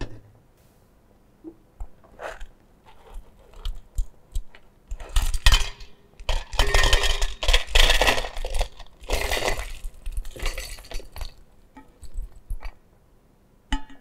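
Dried aggregate being tipped from a metal pan into a stainless steel bowl on a balance: small stones clinking and rattling against the steel, densest in the middle, with scattered taps and clicks of metal before and after.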